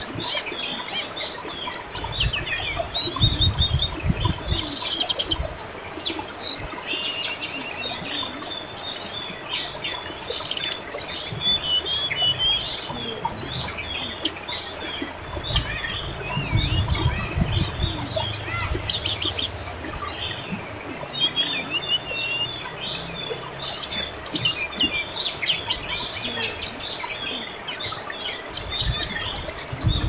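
Many birds chirping and trilling over one another above the steady babble of a river, with a low rumble now and then.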